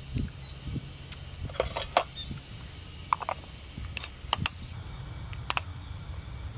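Sharp clicks and taps of a glass food container with a snap-lock plastic lid being handled on a hard camp table, its locking tabs clicking, in scattered groups over a low steady rumble.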